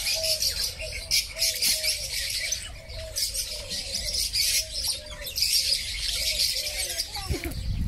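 A flock of lovebirds chattering: a dense, constant twittering of many shrill chirps at once, with a lower short call repeating steadily underneath.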